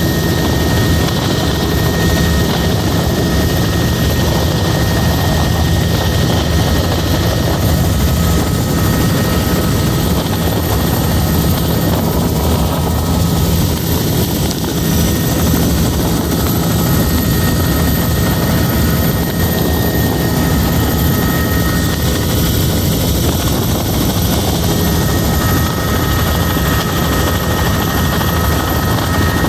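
Helicopter rotor and engine noise heard from inside the cabin in steady flight: loud and even, with a thin steady whine over the low rumble.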